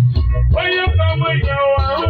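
Live band music: a steady bass line under keyboard and guitar, with a lead melody coming in about half a second in.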